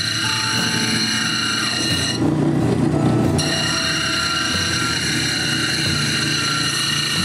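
A faceting machine's motor runs with a steady whine made of several fixed high tones over a hum. About two seconds in, the whine breaks off for a second or so and a rougher noise takes its place, then the whine returns.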